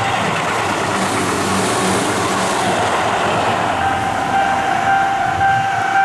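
Tobu Tojo Line train passing over a level crossing with a loud, steady rushing noise. The crossing's electronic warning alarm, a repeating tone, comes through again over the train from about four seconds in.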